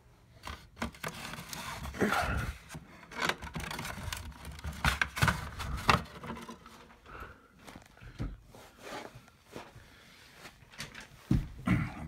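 Plastic smoke detector being gripped, twisted and pulled off its ceiling mounting base: irregular scraping, rubbing and clicking, busiest in the first half, with a sharper knock near the end.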